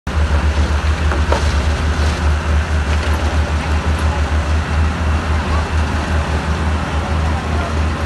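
Heavy earthmoving machinery running, a steady deep engine rumble with a noisy clatter over it.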